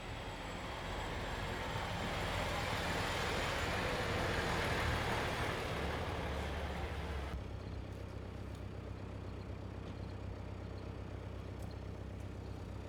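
Steady low rumble of a heavy vehicle engine running, with a loud hiss over it that cuts off abruptly about seven seconds in, leaving the engine rumble alone.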